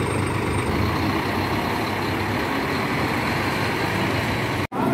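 Diesel engine of a coach bus idling steadily close by, an even low rumble. The sound cuts off abruptly near the end.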